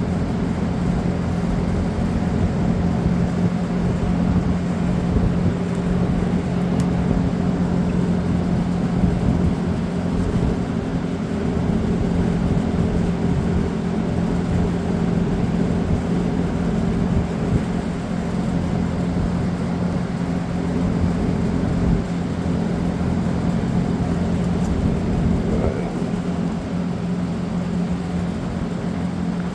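A steady background machine hum, a low drone that holds the same pitch and level throughout, with a faint knock or two from handling parts.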